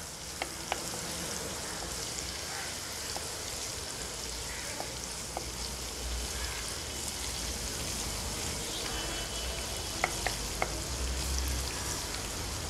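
Chopped onion, garlic and ginger sizzling in hot oil in a non-stick kadai as they are sautéed soft, stirred with a wooden spoon. A few light taps of the spoon on the pan stand out near the start and about ten seconds in.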